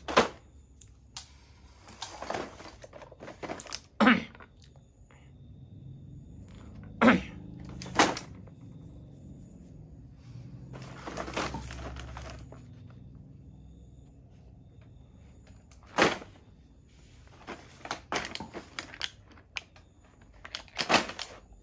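Blister-packed toy sets on cardboard cards being handled and laid down: crinkling of the plastic packaging, with a handful of sharp clacks as the cards knock together or drop onto the pile.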